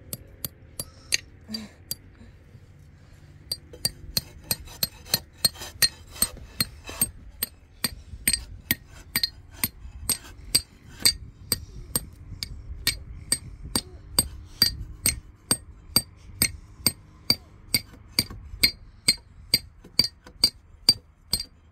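Hammer blows on metal, a few scattered strikes and then a quick steady rhythm of about two to three blows a second, each with a short bright ring.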